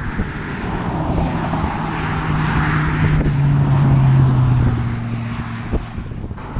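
Motor vehicle on the road: engine hum and road noise swell to a peak about four seconds in, then ease off. The engine note drops in pitch a little after three seconds.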